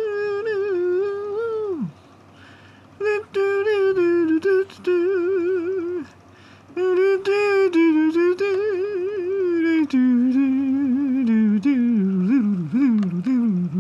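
A person humming a tune in long, wavering held notes, in phrases with short breaks about two and six seconds in; after about ten seconds the melody moves lower and falls.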